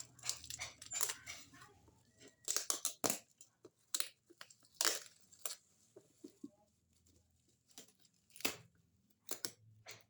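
Hands handling and opening packaging: irregular rustles, clicks and scrapes of cardboard and plastic, busiest for a few seconds after the start and again near the end.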